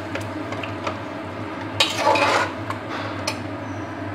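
Steel ladle stirring and scraping mutton against the sides of an aluminium pressure cooker as the meat is braised dry in spices (kosha), with clinks of metal on metal and the strongest scrape about two seconds in. A steady low hum runs underneath.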